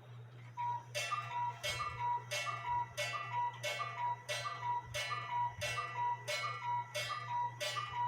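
8-day bell-ringer cuckoo clock sounding the hour: about a dozen evenly spaced strikes, roughly one and a half a second, each ringing on briefly. The count is wrong for the time shown, about 11 or 12, because the cuckoo was held shut while the hands were turned.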